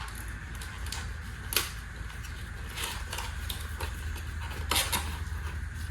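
Handling noise of small hard objects: a few scattered clicks and light knocks, the clearest about one and a half seconds in and near the end, over a steady low hum.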